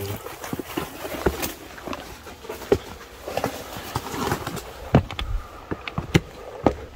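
Footsteps of people climbing stairs, with irregular taps, knocks and scuffs. The loudest knocks come in the second half.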